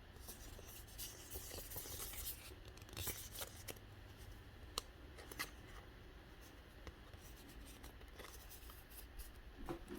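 Faint rustling and scraping of Pokémon trading cards and their packaging being handled, with a few light clicks around the middle.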